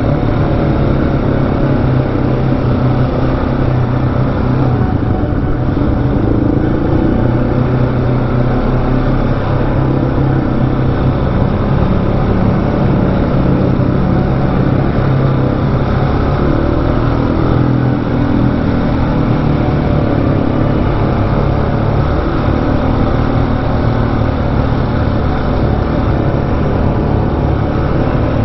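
Single-cylinder supermoto motorcycle engine running under way, steady with small rises and falls in pitch as the throttle changes.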